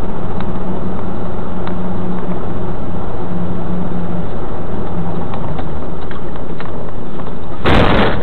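Steady engine and road noise of a moving vehicle, with a low hum. Near the end comes a sudden loud crash as a car collides alongside it.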